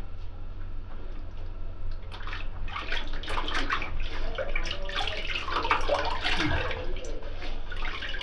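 Water from a bathroom sink tap running and splashing in the basin, growing loud about two seconds in, with irregular splashes as the face is rinsed.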